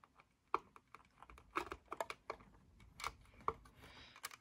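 Faint, irregular small clicks and taps of plastic LEGO pieces being handled as a hand reaches into a built LEGO model to pick out a stray piece.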